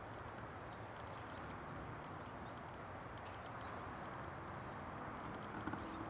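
Quiet outdoor background noise, a steady low rumble, with two faint short high chirps about half a second and two seconds in.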